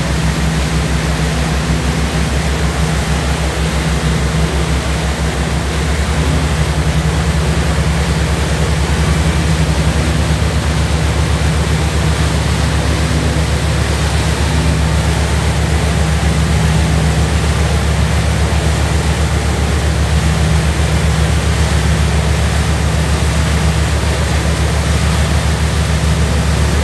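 Boat engine running steadily as a low hum with a fast throb, under a constant rush of wind and water noise.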